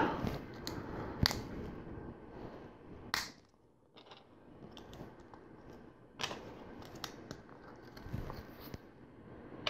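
Faint handling of LEGO plastic pieces: a few light clicks and taps as bricks are turned over and pressed together.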